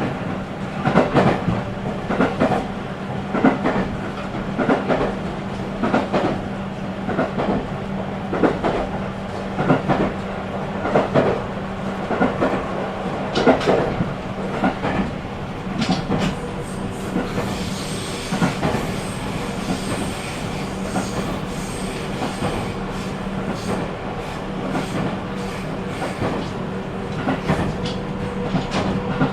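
JR 313-series electric multiple unit running along, heard from inside the car: wheels knocking over rail joints in a regular clickety-clack about once a second over a steady hum. About halfway through, a thin high whine joins in.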